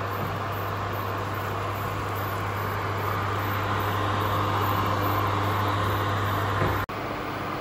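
Steady whir of an induction cooktop's cooling fan with a low electrical hum as it heats a pan of oil. The sound stops abruptly near the end.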